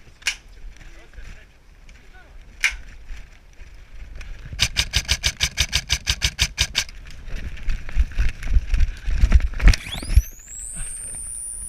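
Airsoft gunfire: two single shots, then a rapid burst of about fifteen shots at roughly seven a second. Near the end a high tone rises steeply and holds.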